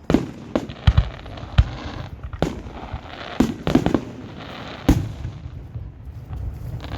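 Fireworks bursting overhead: about ten sharp bangs at uneven intervals, some followed by a short rumble, then a quieter lull near the end.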